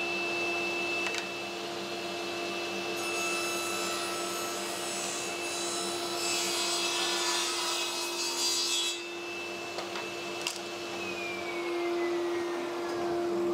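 Table saw running and ripping a couple of millimetres off a length of timber skirting board. The blade cuts the wood for about six seconds in the middle. The saw is switched off about ten and a half seconds in, and its whine falls away as the blade spins down.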